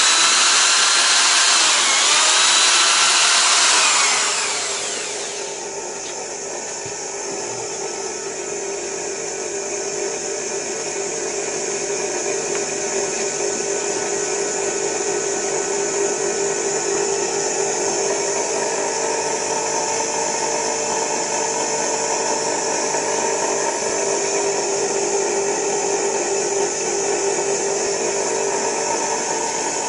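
Corded electric drill running at high speed for about four seconds, its whine sliding up and down in pitch, then stopping. An electric motor-generator rig runs on after it with a steady, even hum.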